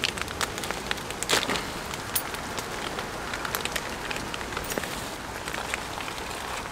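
Steady rain pattering on leaves and ground, with the crinkle of a plastic food packet being opened and handled.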